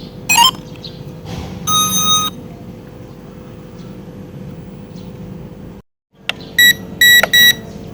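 Electronic beeps from a gadget: a quick rising chirp, then a longer beep about two seconds in, then three short, higher beeps near the end. A steady low hum runs underneath, and the sound cuts out for a moment just before the three beeps.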